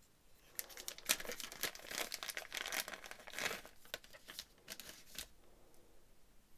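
Paper wrapping crinkling and rustling as it is handled and pulled open by hand to free an earphone cable. It stops about five seconds in.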